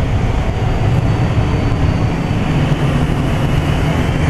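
Broan heat pump's indoor air handler running, its blower giving a steady low rumble and rush of air. A faint thin high whine sits over it for about two seconds.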